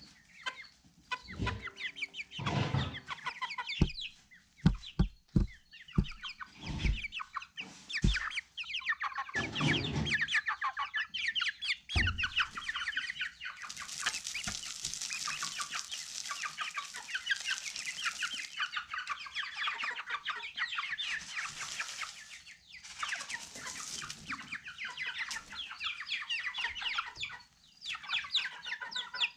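A flock of chickens clucking, many short calls overlapping throughout. Scattered dull knocks sound in the first half, and later come stretches of rustling hiss.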